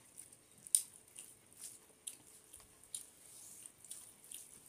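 Bare fingers kneading and mixing rice with curry on a metal plate: a run of soft wet squishes and small clicks, a few a second, with one sharper click about three-quarters of a second in.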